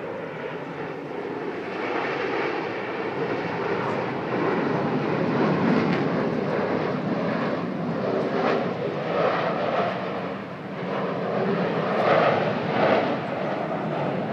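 Jet noise from Blue Angels F/A-18 Hornets flying low overhead, a steady rumble that grows louder after a few seconds and is loudest near the end.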